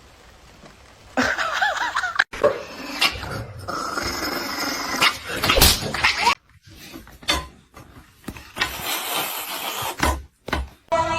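A dog whining and barking in several short bursts, with sliding cries. The sound breaks off suddenly twice.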